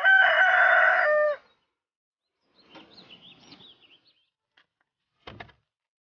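A rooster crowing, one long call that ends about a second and a half in, followed by faint chirping of small birds.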